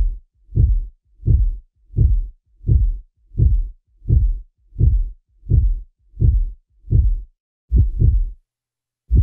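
Heartbeat sound effect: deep double thumps, steady at about one every 0.7 s, with two quicker beats near the end and a short gap after them.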